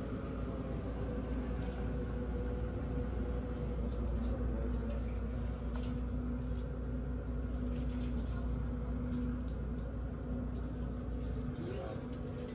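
Steady background of a shop interior: a deep rumble with a steady hum over it and a few faint clicks. The deep rumble drops away near the end.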